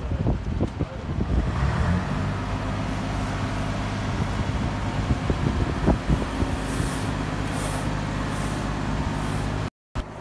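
Diesel engine of a fire brigade turntable-ladder truck running steadily, a low even drone from about two seconds in; before that, irregular low rumbles. The sound cuts out briefly near the end.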